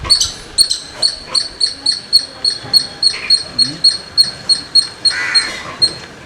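Squirrel chirping: a fast, even run of short, high-pitched chirps, about four a second, with a lower, rougher call about three seconds in and again near five seconds.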